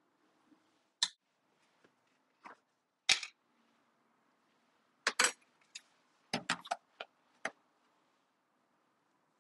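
Kitchen utensils and bowls being handled during baking preparation: about ten short, sharp clicks and knocks at irregular intervals, the loudest a little after three seconds and again around five seconds, with a quick cluster near the end.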